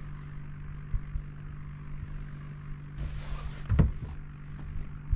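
Steady low hum of a small motor, with a single loud thump a little under four seconds in.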